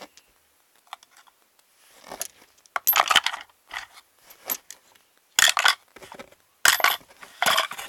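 Small trinkets, among them rocks and a penny, clattering as they are dropped and jostled into a toy treasure chest: several separate rattling clatters, starting about two seconds in.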